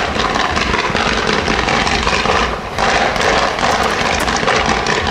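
Fireworks going off in a dense, continuous crackle and hiss from sparking ground fountains, with a brief dip about two and a half seconds in.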